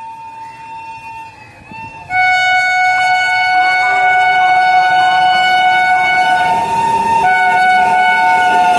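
WAP7 electric locomotive's horn: a faint steady tone, then about two seconds in a loud long blast of several pitches sounding together, held with a short break near seven seconds.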